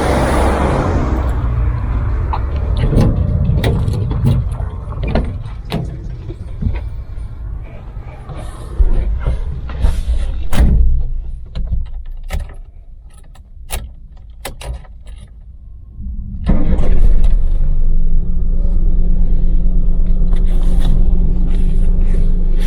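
Scattered clicks and knocks inside the cabin of a Daewoo Damas minivan, then about two-thirds of the way through its LPG-fuelled three-cylinder engine comes on suddenly and idles steadily.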